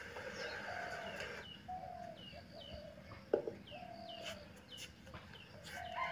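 Faint chickens clucking, short calls repeated every second or so, with higher falling chirps of small birds between them. One sharp knock sounds a little past halfway.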